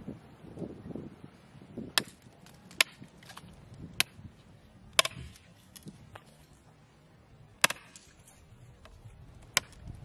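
A large steel chopping knife striking and cutting into a wooden pole resting on a stump: about six sharp chops, irregularly spaced.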